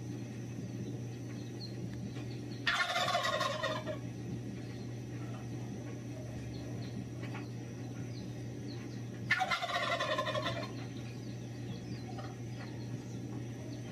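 A male turkey gobbling twice, each gobble about a second long, the two about six seconds apart, over a steady low hum.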